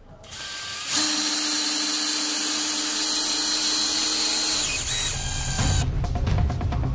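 Würth cordless drill-driver running with a steady whine as it drives a screw into a wall plug through an EPS insulation profile. It starts about a second in and stops around five seconds, and background music takes over near the end.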